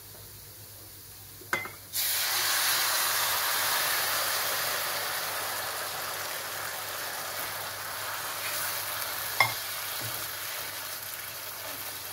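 Hot sugar syrup poured onto ghee-roasted moong dal in a hot pan: a loud sizzle breaks out suddenly about two seconds in and slowly dies down as it is stirred. A short knock comes just before the sizzle and a sharp one about two-thirds of the way through.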